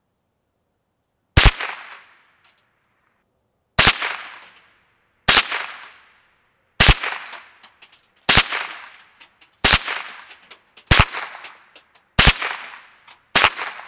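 Nine .22 LR shots from a scoped Ruger 10/22 semi-automatic rifle, the first about a second and a half in and the rest coming about one every second and a half. Each is a sharp crack with a short fading echo, followed by a few faint ticks.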